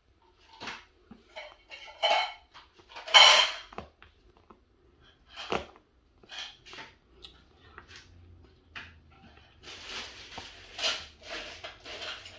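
Small plastic clicks and rattles of diamond-painting drills being handled: the drill pen tapping drills onto the canvas and drills shifting in their tray. There are two louder rattles about two and three seconds in and a run of rattling near the end.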